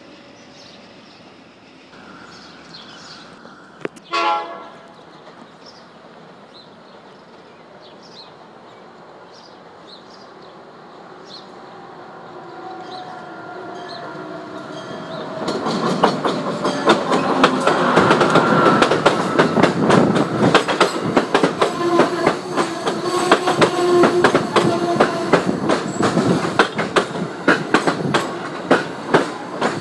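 Amtrak train led by an AEM-7 electric locomotive approaching and passing close by at speed. A short horn blast sounds about four seconds in, the approach builds slowly, then from about halfway the loud rush and rapid clickety-clack of wheels over the rail joints carries on as the Amfleet coaches go by.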